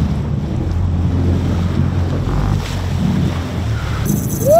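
Sportfishing boat's engine running steadily, with wind and sea noise over it. Near the end comes a short whoop that rises and falls.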